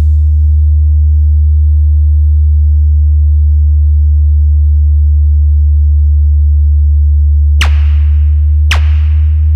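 A loud, deep, steady bass hum from a DJ sound-check track, a 'powerful humming vibration' test for the bass. About seven and a half seconds in, sharp hits come in about once a second over the hum.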